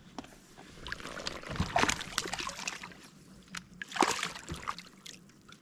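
Water splashing and sloshing against a kayak in a few irregular bursts, the loudest about two seconds and four seconds in.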